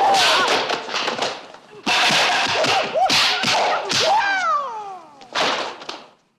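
Film fight sound effects: whooshing stick swings and sharp impact hits mixed with fighters' shouts and cries, with one long cry falling in pitch about four seconds in.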